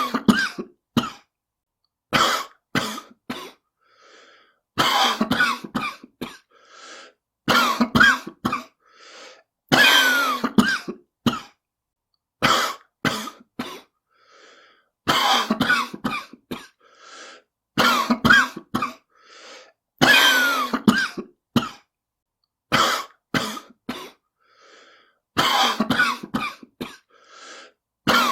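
A person's smoker's cough: loud coughs in clusters every two to three seconds, with fainter breaths between the fits.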